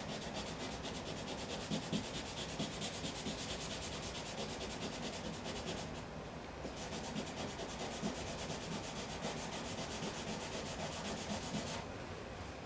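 Hand sanding block rubbing back and forth over a car's painted body panel in quick, even strokes, taking a paint run down level against masking tape. The sanding pauses briefly about halfway and stops shortly before the end.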